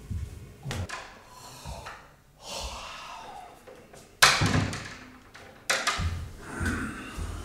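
A door banging shut about four seconds in, with a second sharp knock about a second and a half later.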